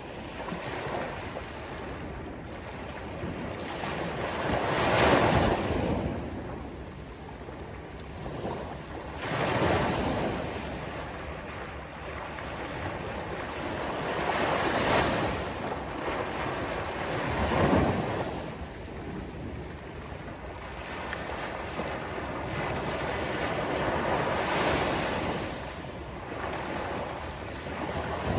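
Sea surf on a beach: waves breaking and washing in, swelling to a loud surge every few seconds, about five times, the loudest around five seconds in.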